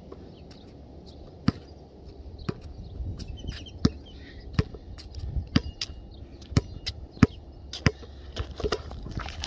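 Spalding basketball dribbled on an asphalt court: sharp bounces at about one to two a second, starting about a second and a half in and coming a little faster near the end.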